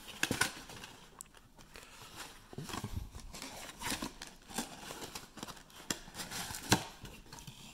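Hands handling a cardboard trading-card blaster box and its foil-wrapped card packs: scattered light taps, clicks and crinkling rustles.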